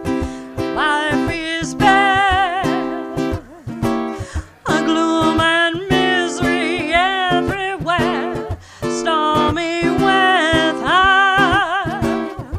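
A female jazz vocalist sings three long phrases with wide vibrato over strummed baritone ukulele chords.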